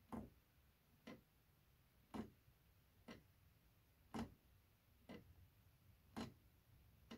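3D-printed plastic mechanical pendulum clock ticking, about one tick a second, with louder and softer strokes alternating in a tick-tock.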